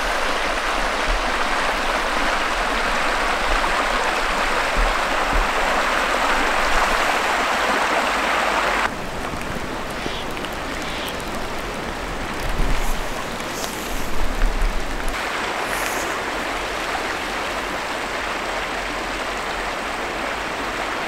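Creek water rushing steadily. The sound drops and changes about nine seconds in.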